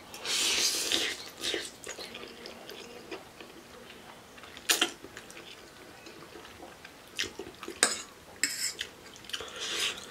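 Spicy instant ramen noodles slurped loudly into the mouth in the first second, then chewing, with sharp clicks of a fork against the bowl about five and eight seconds in and more short slurps near the end.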